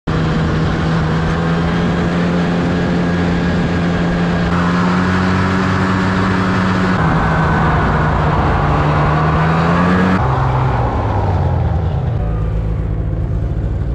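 Snowmobile engine running steadily under the riders at travelling speed, its pitch dropping as it slows about ten seconds in.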